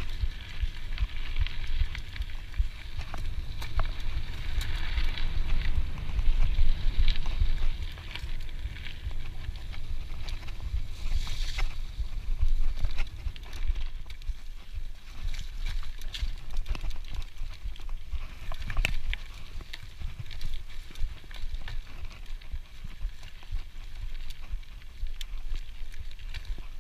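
Scott Genius mountain bike rolling along a dirt singletrack trail: tyres crunching over the ground, with many scattered clicks and rattles from the bike, under a constant uneven rumble of wind and bumps on the helmet-camera microphone.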